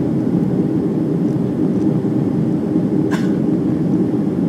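Steady low drone of a jet airliner's engines and airflow heard inside the passenger cabin during the climb after takeoff. A brief sharp sound cuts in about three seconds in.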